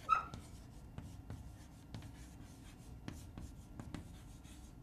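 Chalk writing on a blackboard: faint, irregular taps and short scratches as the letters are stroked out.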